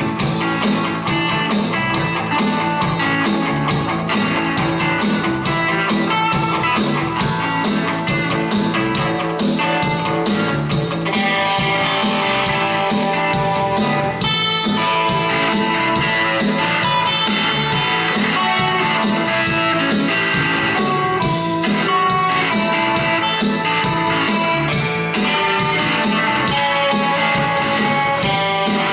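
Two electric guitars, a Squier and a Rickenbacker, jamming through distortion over a steady hard-rock beat from an Alesis SR-18 drum machine.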